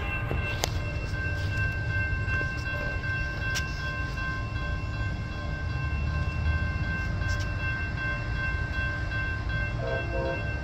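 Railroad grade-crossing warning bell ringing steadily while the crossing gates lower, signalling an approaching train, over a low rumble.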